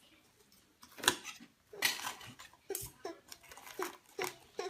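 A series of light, irregular clicks and taps, about two a second, starting about a second in.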